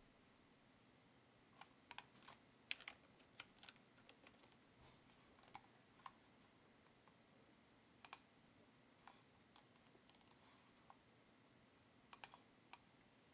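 Faint, scattered clicking at a computer: a cluster of clicks about two to three seconds in, a pair about eight seconds in, and a short run near the end, over a low steady room hiss.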